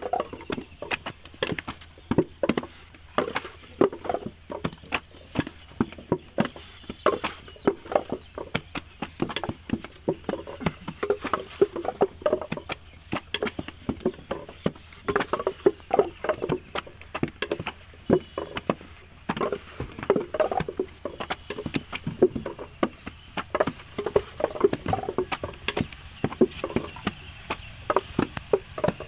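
Wet clay being slapped into wooden brick moulds and the moulds knocked against sandy ground during hand-moulding of bricks, with several workers at it together. An irregular run of dull thuds and slaps, several a second.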